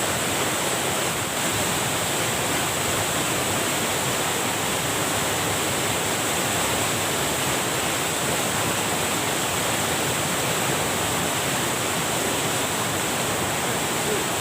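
Water pouring steadily over a small waterfall or weir cascade, an even rushing sound with the river running high after heavy rain.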